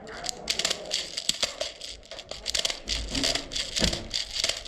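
Airsoft BB speed loader being worked to refill a magazine: a run of quick crackling, rattling clicks, about three or four a second.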